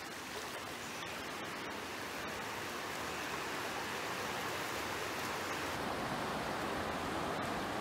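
Small waves washing in shallow seawater at the shoreline: a steady, even hiss.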